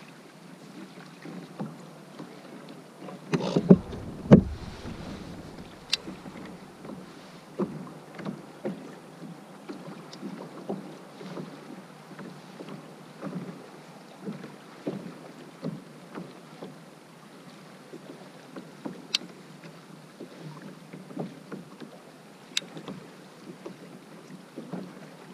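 Small waves lapping and slapping irregularly against a fishing kayak's hull. There are a couple of heavier thumps about three to four seconds in, and a few sharp ticks later on.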